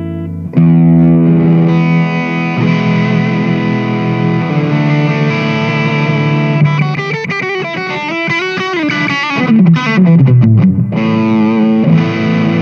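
Electric guitar played through an Ernie Ball Expression Overdrive pedal: a chord struck and left ringing, then a fast lead run that falls in pitch about seven seconds in, ending on another held chord.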